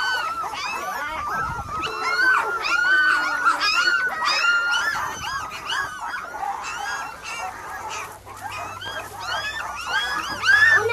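Several Dalmatian puppies whining at once: many short, high-pitched, arching cries overlapping one another without a break.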